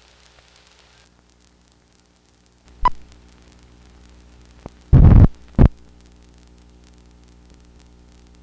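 Steady hum from a 16mm film's optical soundtrack as blank leader runs past the sound head, broken by a short sharp pop about three seconds in and two loud thumps around five seconds in.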